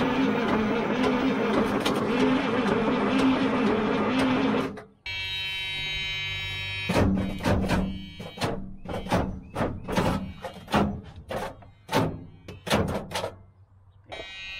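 1991 Mack CH diesel engine cranking over on the starter without firing, cutting off abruptly after about five seconds; the engine won't start. A steady tone and then a run of sharp, irregular clicks follow.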